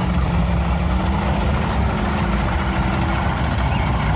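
Heavy armoured-tank engine running steadily and loud, a deep rumble with a low hum.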